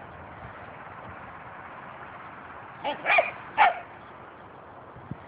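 A dog barking during a chasing game, three quick barks close together about three seconds in.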